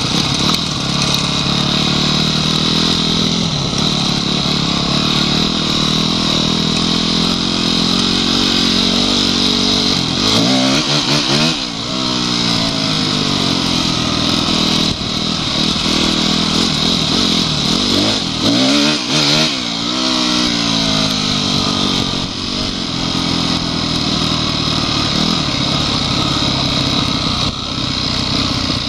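Honda CRF250X's single-cylinder four-stroke engine running while riding off-road, the revs rising and falling with throttle and gear changes, most clearly around ten and nineteen seconds in, over a steady wind hiss.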